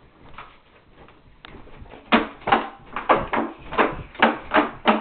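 A child jumping on a bed: a quick, even run of bouncing thumps from the mattress and frame, about three a second, starting about two seconds in.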